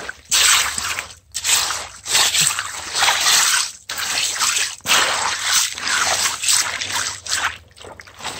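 Creek water sloshing and splashing through a floating mesh sifting screen as wet gravel is stirred and washed by hand, in repeated surges with short breaks.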